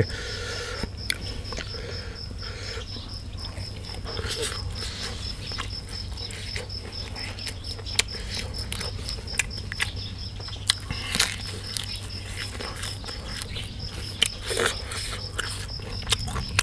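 Close-up chewing and crunching of raw vegetables and leaves, with scattered sharp clicks and crackles of plucking and biting. Behind it an insect chirps steadily in a fast, even pulse.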